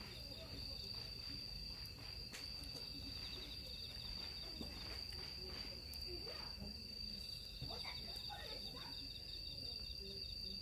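Crickets chirping in a steady night chorus: a continuous high trill with a faster pulsing trill just beneath it. Faint distant voices sound in the background.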